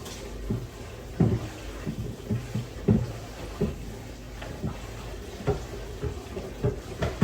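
Kitchen handling sounds: a string of irregular light knocks and clunks, about one or two a second, as dishes and utensils are moved about during food prep, over a low steady hum.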